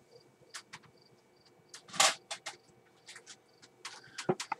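Small glass jars clinking and knocking as one is taken off a spinning spice rack, with a series of short clicks and one louder clack about two seconds in.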